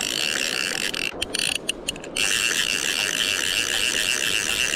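Fly reel's drag buzzing in a fast ratchet as a hooked coho salmon pulls line off, cutting out twice for a moment between one and two seconds in.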